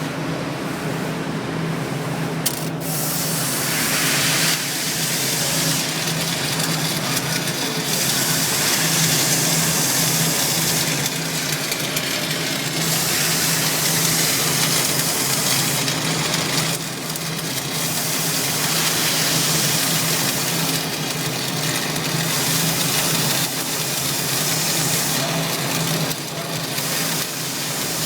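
Stick welding arc crackling and sizzling steadily, struck with a sharp click about two and a half seconds in, over the steady hum of the welding machine. The arc dips briefly a couple of times.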